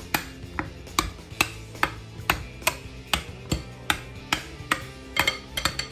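A metal spoon clinks against a glass bowl as canned yams in syrup are mashed, with sharp clicks about two a second and a quick flurry near the end. Soft background music plays underneath.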